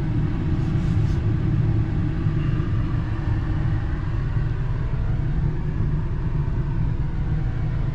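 Car cabin noise: the engine and tyres of a moving car make a steady low rumble, heard from inside the car.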